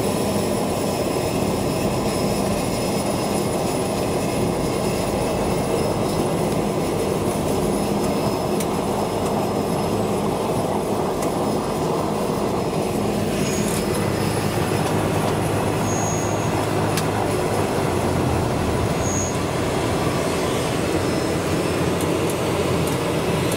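Cessna 208B Grand Caravan's Pratt & Whitney PT6A turboprop heard from inside the cabin during a taxi, a steady loud rumble with a low drone. About halfway through the sound turns brighter and hissier.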